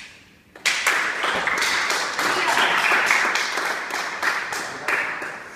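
Applause: a small group clapping hands, starting about half a second in and tapering off near the end.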